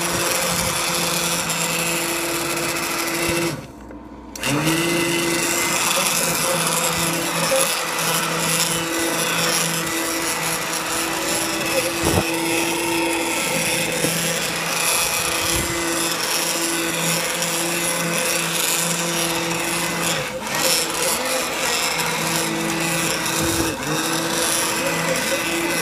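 Electric blender motor running steadily while pureeing soft cooked mango. It cuts out briefly about four seconds in and winds back up.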